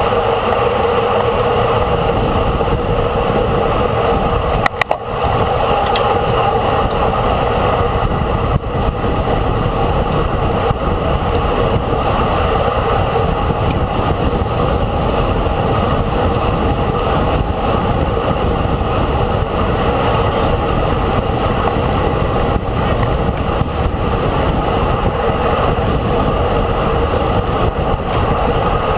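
Steady noise of a vehicle moving at speed, with a constant hum under wind and road noise that barely changes.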